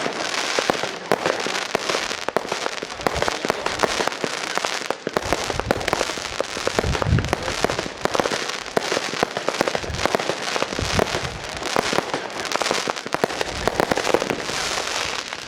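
Fireworks display: a dense, continuous stream of rapid crackles and bangs, with deeper booms about halfway through.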